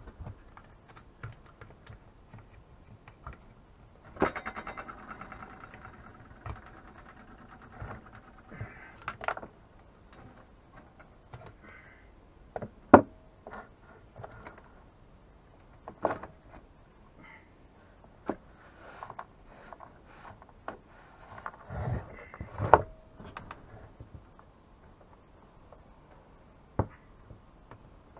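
Scattered clicks, knocks and rattles of a chainsaw's housing and parts being handled and taken apart by hand. There is a rattle lasting a couple of seconds about four seconds in, and sharp knocks near thirteen and twenty-three seconds.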